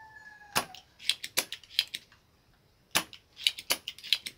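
Spring-loaded desoldering pump (solder sucker) being cocked and fired, giving a series of sharp, irregularly spaced snaps and clicks as it pulls molten solder off the output transistor pins of a powered-speaker amplifier board.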